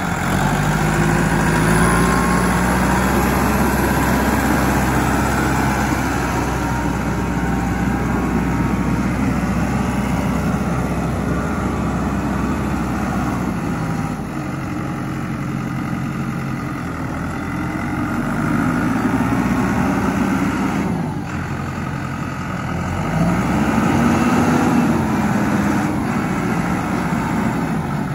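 Case IH Farmall 85C tractor's four-cylinder diesel engine running as the tractor is driven, the engine speed rising and falling several times.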